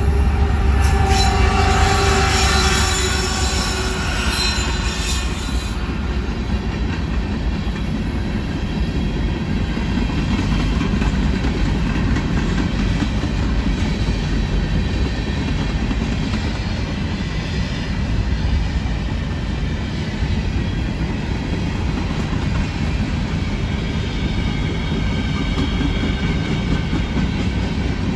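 Freight train of covered hopper cars rolling past, with a steady low rumble and clatter of wheels on rail. Wheels squeal high-pitched for the first five seconds or so, then the squeal dies away and the rumble carries on.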